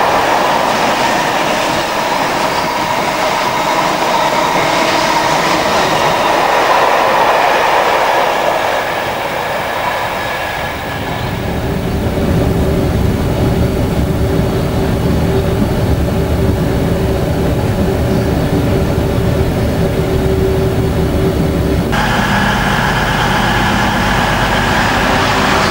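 Freight trains passing close by at a station: first a long train of oil tank wagons rolling past with steady wheel noise on the rails. After a sudden change about eleven seconds in, a heavier low rumble with a steady hum as more freight wagons go by, and near the end another freight train approaching.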